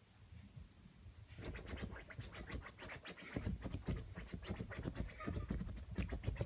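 Yorkshire terrier puppy digging at a cloth pillow with its front paws: a fast run of scratching strokes that starts about a second in.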